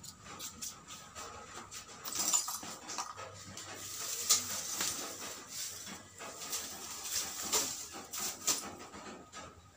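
Thin plastic bag crinkling and lumps of wood charcoal clinking and rattling as they are dropped in by hand and the bag is set on a scale: a run of irregular rustles and clicks.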